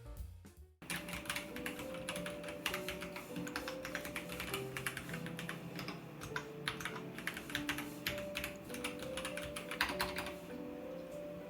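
Fast typing on a Royal Kludge RK100 mechanical keyboard with its red linear switches: a dense run of key clacks that starts about a second in, with background music throughout.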